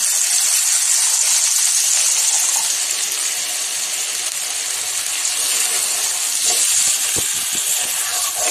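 Spiced water just poured into hot mustard oil and fried onion-tomato masala in a kadai, sizzling with a steady loud hiss.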